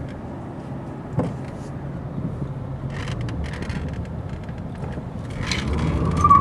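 Car cabin noise while driving: a steady low road and engine rumble, getting louder toward the end. A sharp knock comes about a second in, with short rattles a few seconds later.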